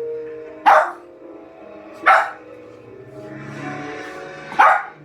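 A dog barking three times, loud single barks spaced unevenly over about four seconds.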